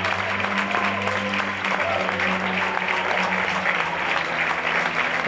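Audience applauding steadily over background music with held low notes.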